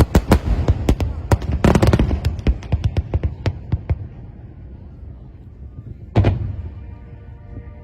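Aerial fireworks bursting: a rapid run of sharp bangs and crackles over the first four seconds, densest about two seconds in, then a lull and a single bang about six seconds in.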